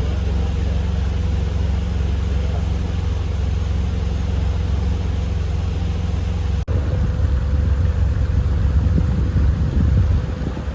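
Pontoon boat's motor running at a steady speed, a constant low drone with a faint steady hum above it, broken for an instant about two-thirds of the way in.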